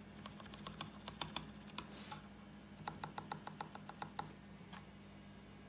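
Mechanical keyboard keys being typed on, faint sharp clicks in short irregular runs, over a low steady hum.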